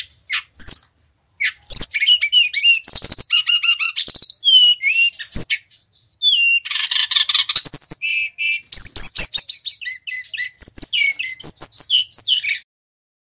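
A caged male brown-chested jungle flycatcher (sikatan rimba dada coklat) singing: two brief notes, a short pause, then a long, fast, unbroken run of varied whistled notes, chirps and trills that stops shortly before the end.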